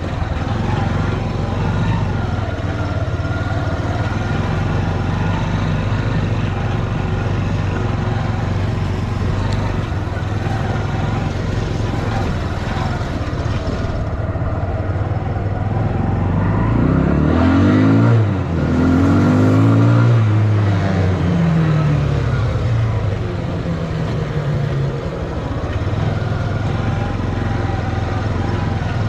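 Small motor-vehicle engine running steadily at idle, revved up and back down a couple of times about two-thirds of the way through.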